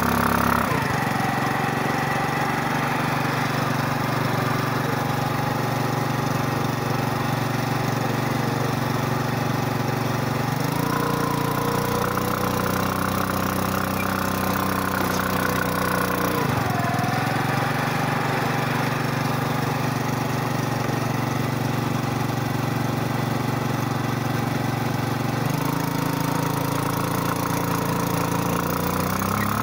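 Scooter engine running at held revs. The revs drop about half a second in, rise again around eleven seconds, fall back around sixteen seconds and climb once more around twenty-five seconds.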